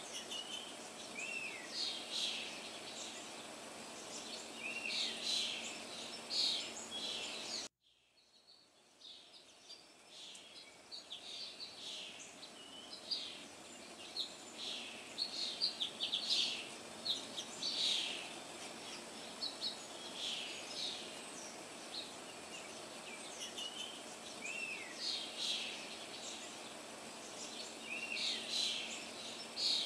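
Small birds chirping and twittering over a steady background hiss, many short calls with some quick up-and-down slurred notes. About eight seconds in the sound cuts out abruptly and fades back in over a few seconds.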